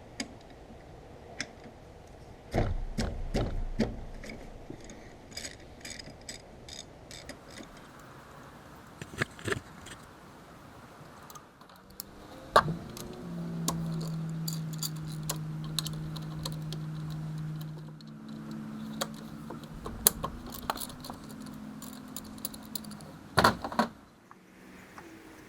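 Socket wrench and metal tools clinking and clicking against bolts in a car's engine bay, with scattered sharp clicks, a louder clatter about two and a half seconds in and another near the end. A steady low hum runs through the second half.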